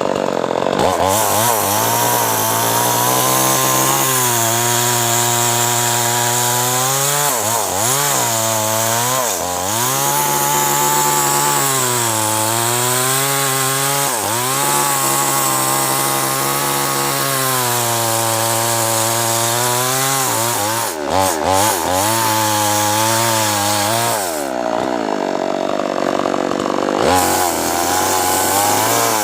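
Two-stroke chainsaw cutting acacia wood under load. The engine note holds fairly steady, sags and recovers several times as the chain bites into the wood, and turns rougher and noisier near the end.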